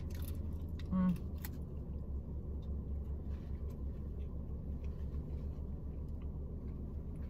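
Chewing and mouth sounds from eating a shawarma wrap, faint clicks and smacks over a steady low rumble from the idling car. A brief voiced 'mm' comes about a second in.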